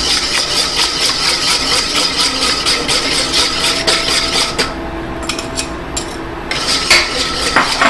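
Wire whisk beating egg yolks into a hot sugar mixture in a stainless steel bowl, the wires scraping and clattering against the metal in rapid strokes. The whisking stops for about two seconds a little past the middle, then starts again.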